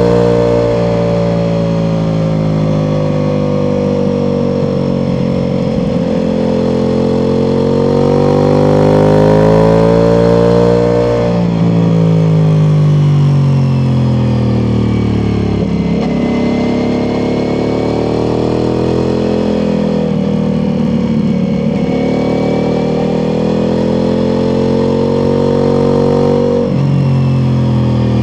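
Ducati Multistrada V4 Pikes Peak's V4 engine through an Akrapovič exhaust, under way on the road. The engine note climbs and falls with the throttle, with three short breaks where the gears change.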